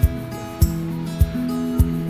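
Background music with acoustic guitar over a steady beat.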